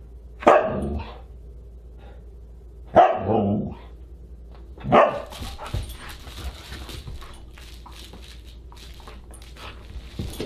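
Siberian husky barking three times, about two seconds apart, each bark short. From about five seconds in, small scratching and rustling as the dog digs through a dog bed full of plush toys.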